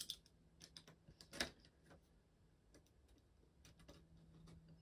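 Faint scattered clicks and light scrapes of a box cutter cutting into the side of a cardboard figure box, the sharpest click about a second and a half in.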